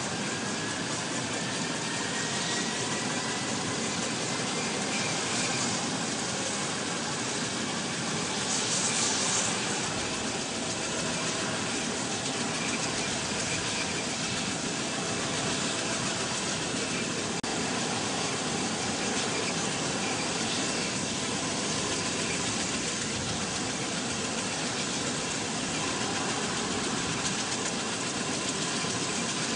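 An engine running steadily, with a faint whine rising in pitch over the first few seconds.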